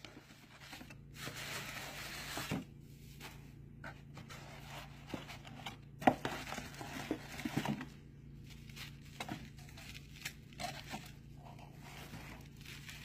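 Rustling and crinkling of shredded paper confetti fill as a hand digs through a small cardboard box, with a few sharp knocks from handling the box.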